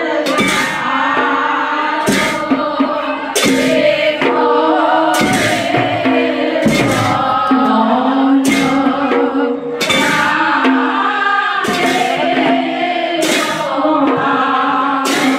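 Devotional aarati kirtan: a group of voices singing over a held note, with a sharp percussion stroke about every second and a half.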